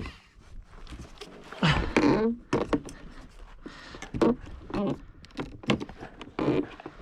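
A man grunting and breathing hard while fighting a hooked fish on a fishing rod and reel, with sharp clicks and knocks from the tackle and kayak between the grunts. The loudest grunt comes about two seconds in.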